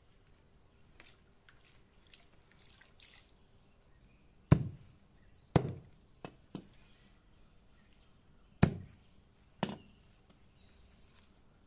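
Knife chopping bunches of fresh mint and dragonhead stems on a wooden stump. After some faint handling of the herbs, there are six chops in the second half, three of them loud and the others softer, spaced about a second apart.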